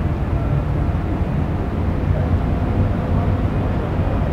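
Engines of the container ship CMA CGM Topaz running as it passes, a steady low rumble.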